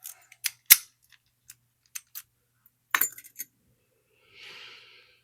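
Small metal clicks and clinks from the Lockwood 334B45 padlock and tools being handled while it is taken apart. They come at irregular intervals, the loudest about three-quarters of a second in and a quick cluster about three seconds in, followed by a soft scraping rustle near the end.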